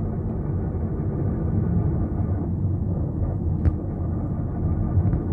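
Steady grinding hum from the automatic transmission of a 2020 Hyundai Sonata DN8 with the car running; it sounds like differential noise and gets louder when the accelerator is pressed. The fault behind the grind is a worn idler bearing inside the transmission.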